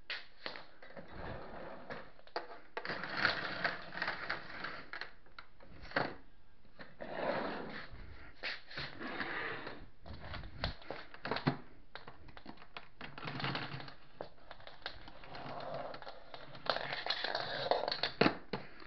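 Irregular clicks, knocks and rustling of objects being handled in a small room, with no machine running.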